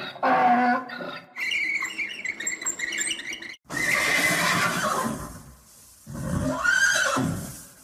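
Donkey braying: a harsh, noisy call that starts about halfway in, with a rising and falling squeal near the end.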